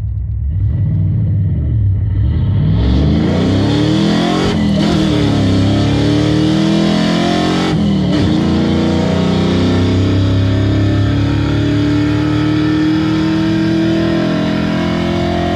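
Cammed, carbureted Vortec engine in an OBS Chevy pickup accelerating through the gears of a manual transmission, heard from inside the cab. The revs climb, break off briefly at two slow gear changes about five and eight seconds in, then climb slowly again in the higher gear.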